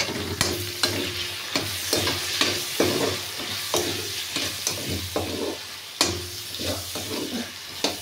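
Sliced onions and green chillies sizzling in hot oil in a kadhai, stirred with a steel spatula that scrapes and taps against the pan over and over. A steady low hum runs underneath.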